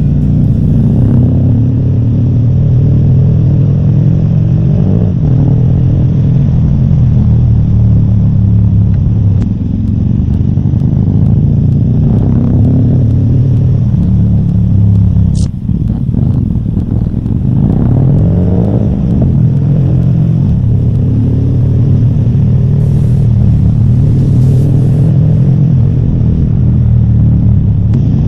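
A vehicle engine running while on the move, its pitch drifting up and down with the throttle, and a brief sharp click about fifteen seconds in.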